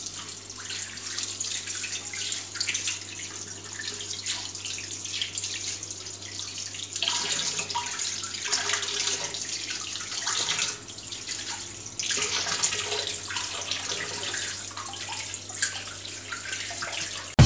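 Tap water running into a glass vessel sink while hands and forearms are rubbed and rinsed under the stream, washing off a dried skin pack. The splashing grows louder at times, most noticeably from about two-thirds of the way through.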